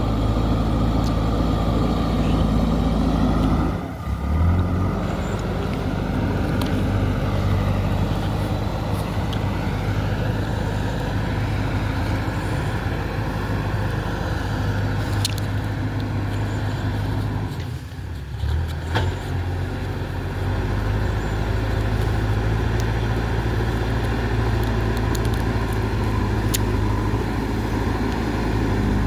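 JCB 3DX backhoe loader's diesel engine running steadily under work, its note dipping and picking up again twice, with a few faint sharp clicks.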